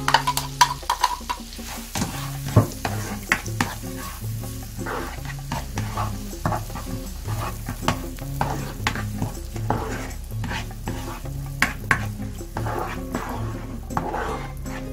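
Chopped red onion sizzling in melted butter in a nonstick frying pan while a spatula stirs it, with many quick clicks and scrapes of the spatula against the pan and the glass bowl the onion is scraped from.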